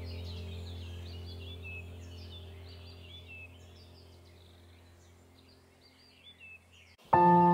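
Ambient background music: a low held drone slowly fades out under a steady stream of birdsong chirps. About seven seconds in, a loud struck, bell-like tone starts suddenly and rings on.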